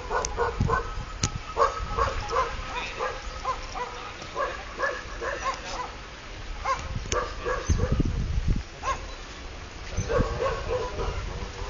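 A dog barking repeatedly in short, sharp barks, over gusts of strong wind rumbling on the microphone, the heaviest gust about eight seconds in.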